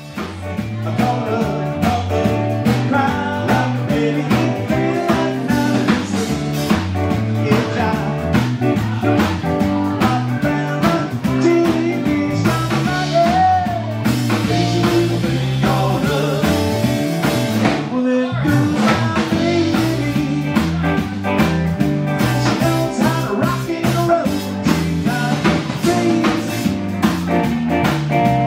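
Live rock band playing: electric guitar, bass guitar and a drum kit, with a male lead vocal. The band stops briefly about two-thirds of the way through, then plays on.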